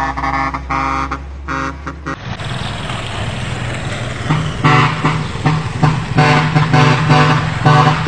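Truck musical horns playing tunes in short pitched notes: one stops abruptly about two seconds in, leaving engine and road noise, and a second horn tune of repeated notes starts a little after the halfway point.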